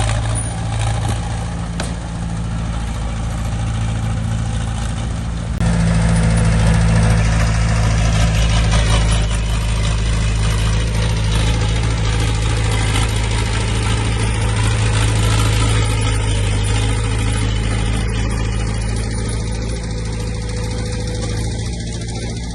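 Diesel engine of a heavy earthmoving machine running steadily, getting louder about five seconds in as it works harder.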